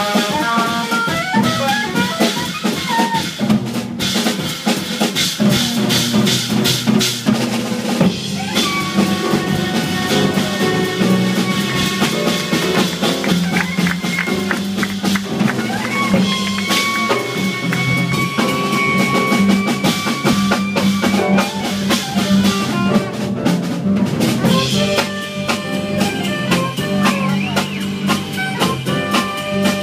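Live jazz quartet playing: saxophone over grand piano, bass and a busy drum kit with rimshots and snare strokes, with a long held note about halfway through.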